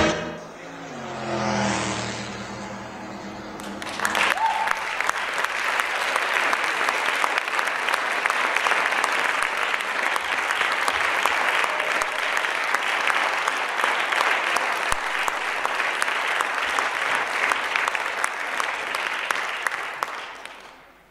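The last notes of the dance music fade out, then an audience applauds steadily, starting about four seconds in and dying away near the end.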